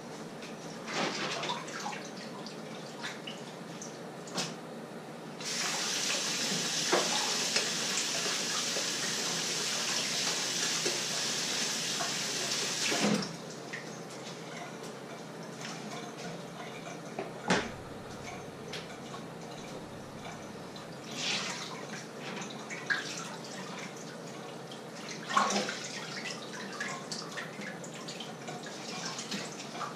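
Washing up by hand at a kitchen sink: the tap runs in a steady stream for about seven seconds and is shut off, with scattered clinks and knocks of dishes and pots before and after.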